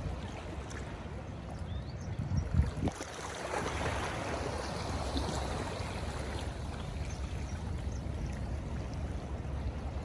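Ocean water washing in and surging, swelling about three and a half seconds in, over a steady low rumble of wind on the microphone, with a couple of short knocks just before the surge.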